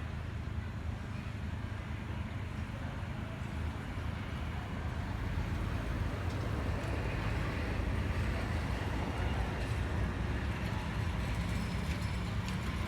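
Steady low rumbling background noise, growing a little louder about halfway through.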